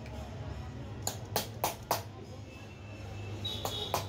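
Hammer tapping a metal rod against a marble cutter's motor housing to work a stuck part loose: four sharp metallic taps about a quarter second apart starting about a second in, then another near the end.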